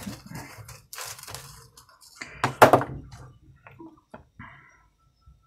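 A thin plastic seedling cell tray crackling and knocking as it is handled and the end of a marker is pushed into its potting soil to make planting holes. The loudest crack comes about two and a half seconds in.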